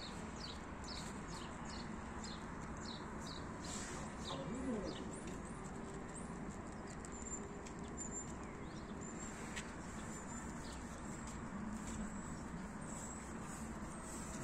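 Small birds chirping in quick repeated calls, then a few thin high whistles, over a steady low background hum.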